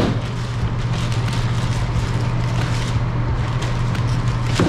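Steady low mechanical hum, with a plastic bag rustling as frozen tambaqui fillets are pulled out of it, and a knock near the end as a fillet goes into a plastic crate.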